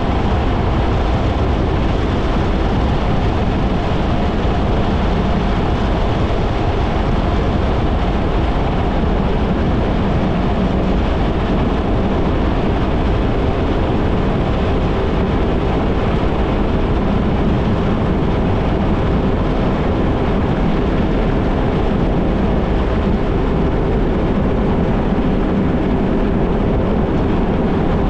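Kawasaki Ultra 160 LX-S jet ski's naturally aspirated four-cylinder engine running steadily under way, at an even, unchanging pitch and level.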